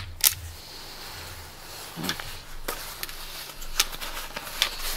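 Self-adjusting wire strippers clamping and snapping on a cable: two sharp clicks right at the start, a quarter second apart, then scattered lighter clicks and handling noise as the stripped wire is worked.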